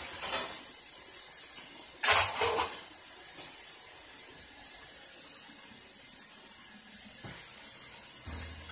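A sharp clack about two seconds in with a short rattle after it, then a faint steady hiss and a soft knock near the end.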